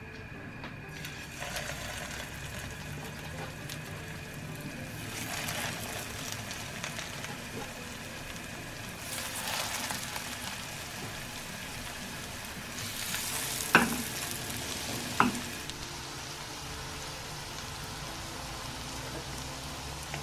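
Syrniki (cottage-cheese patties) sizzling as they fry in vegetable oil in a non-stick pan. The sizzle starts about a second in and swells several times. Two sharp clicks, about a second and a half apart, come a little past the middle.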